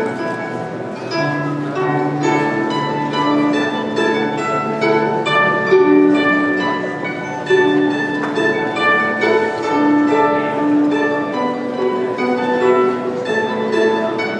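Solo guzheng, a Chinese long zither, played with plucked notes that ring and fade: a running melody over lower bass notes.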